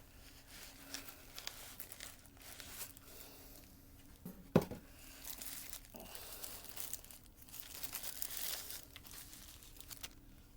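Plastic crinkling and rustling with small clicks as a camcorder is handled, and one sharp click about four and a half seconds in.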